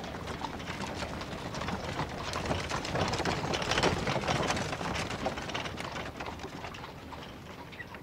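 A dense clatter of many small knocks and steps passing by, swelling to its loudest about halfway through and fading toward the end.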